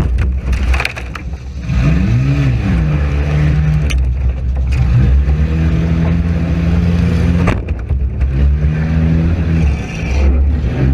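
Demolition derby car's engine revving up and down inside the gutted car, under a heavy low rumble. Sharp bangs of car-to-car hits about a second in, at about four seconds, and at about seven and a half seconds.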